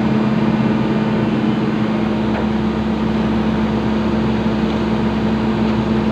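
Excavator's diesel engine running steadily with a constant hum.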